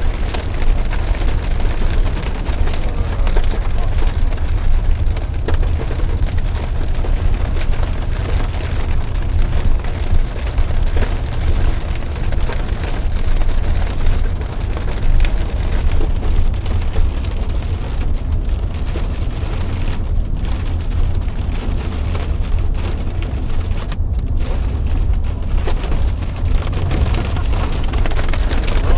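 Heavy rain beating steadily on a vehicle, a dense patter of drops over a constant deep rumble.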